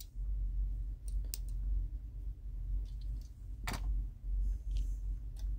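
A few sparse, sharp clicks from handling plastic wrapping and tape around a die-cast toy car, the sharpest about two thirds in, over a steady low hum.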